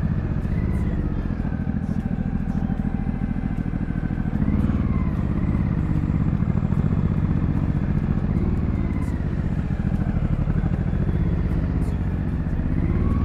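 JS700 motorcycle engine running at low speed in slow stop-and-go traffic, a steady low rumble that grows a little louder about four seconds in.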